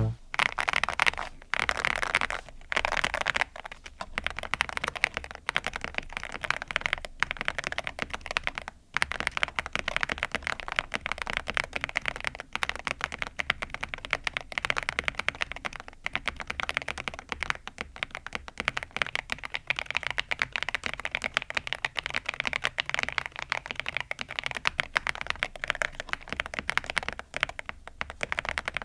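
Fast, continuous typing on a YUNZII B87 tenkeyless mechanical keyboard with round MOA-profile keycaps: a steady stream of key clacks, with brief pauses about four and nine seconds in.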